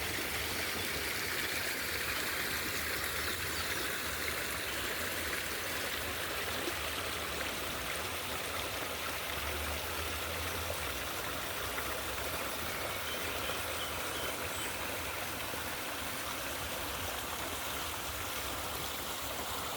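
Flowing water rushing steadily, an even unbroken sound.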